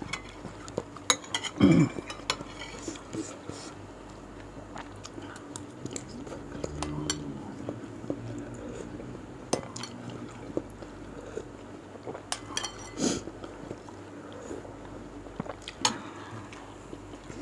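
Metal spoon clinking and scraping against a ceramic bowl as meatballs and broth are scooped, in several separate sharp clinks, with close-miked chewing between.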